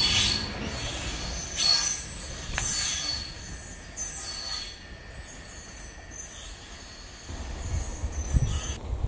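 Loaded ballast wagons of an engineering train passing, their wheels squealing on the rails in several high, steady tones that fade away as the tail of the train goes by, about five seconds in. A low rumbling noise comes in near the end.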